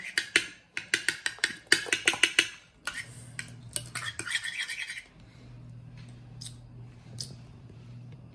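Metal spoon clinking against a small sauce bowl while stirring wasabi into dipping sauce: a quick run of light clinks for the first couple of seconds, then a scraping, rustling stir. After about five seconds only a faint low hum remains.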